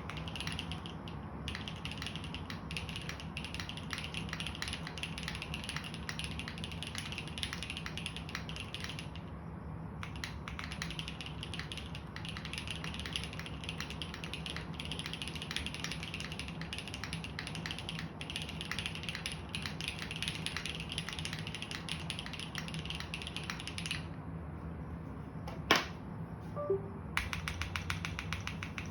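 Continuous fast typing on a gasket-mounted JJW Moment60 mechanical keyboard with lubed, Cherry-topped JWK Tungsten linear switches on a polypropylene plate, under GMK keycaps: a dense run of keystroke clacks. The typing breaks off briefly about nine seconds in and again near the end, where one sharper, louder click stands out.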